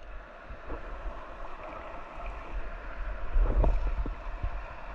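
Sea water lapping and sloshing, with wind rumbling on the microphone; the wind rises about three and a half seconds in. A few soft knocks come near the end.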